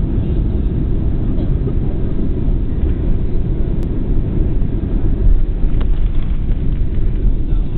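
Cabin noise of a Boeing 767-300 landing: a steady low rumble of engines and rushing air. Just past five seconds in there is a brief louder jolt, as the wheels touch down and the wing spoilers rise.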